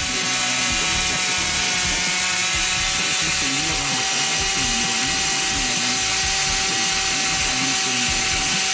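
Concrete-cutting power saw running steadily: a constant whine over a dense hiss.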